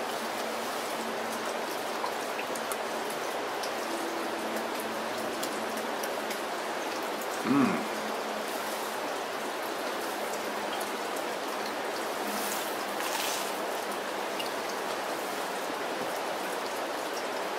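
Steady rain falling, an even hiss. About seven and a half seconds in, a man's voice gives one short low hum.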